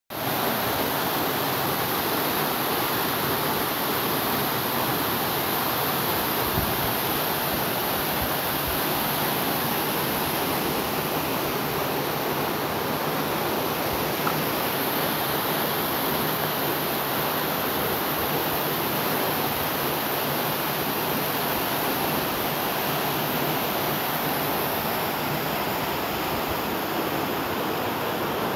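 Waterfall pouring into a pool: a steady rush of falling water.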